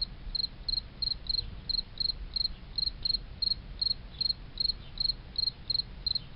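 Crickets chirping in a steady rhythm of about three chirps a second, each chirp a quick double pulse, over a low steady hum.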